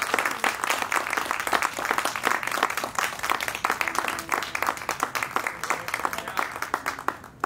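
Small audience applauding, a dense patter of hand claps that thins out and fades toward the end.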